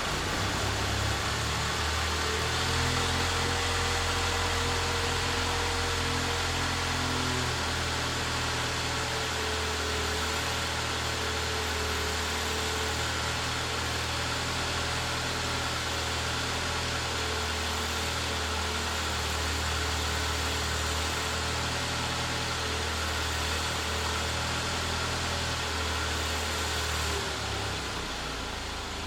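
Mercedes W124 engine idling steadily with a low hum under a steady hiss, while the car is tested after a wiper motor repair; the hum stops near the end.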